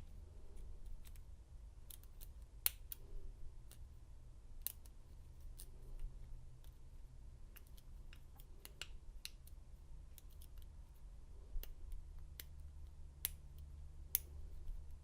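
Lock pick and tension wrench working in the keyway of an American 1100 padlock: small, irregular metallic clicks and ticks as pins are set, a few sharper ones among them, over a faint low hum.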